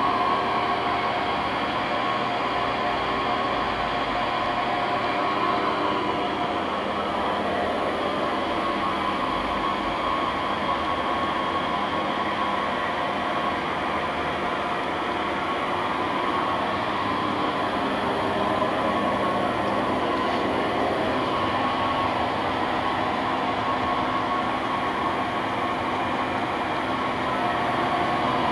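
Bridgeport EZ Path SD lathe running under power, its direct-drive spindle turning at a steady speed. The sound is a steady machine hum with several fixed tones over a noisy hiss.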